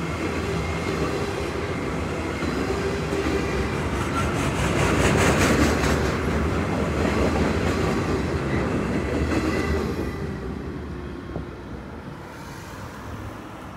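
Freight train flatcars loaded with long steel rail rolling past: a steady rumble of steel wheels on the track with clickety-clack. It is loudest about five seconds in and fades after about ten seconds as the last car goes by.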